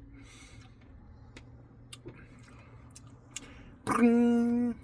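Faint close-up eating sounds: scattered small clicks and a brief soft hiss near the start. About four seconds in comes a loud, steady-pitched hum lasting just under a second, which cuts off suddenly.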